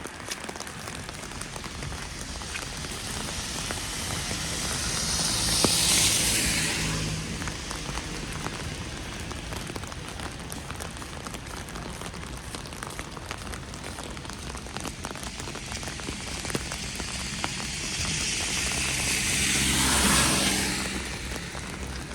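Two vehicles pass on a wet road, each a swell of tyre hiss that rises and fades, the first peaking about six seconds in and the second near the end. Underneath, a steady patter of falling wet snow.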